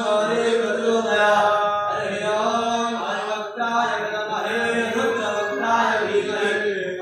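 Devotional mantra chanting: a voice intoning in long held, melodic notes without a break.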